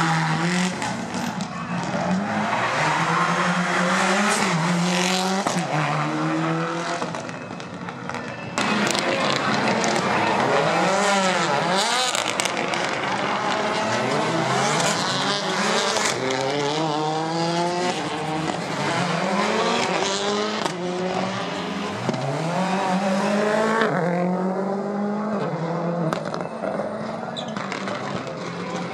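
Rally car engines revving hard, rising in pitch and dropping back again and again through gear changes. Several passes are cut together, and the sound changes abruptly at the cuts.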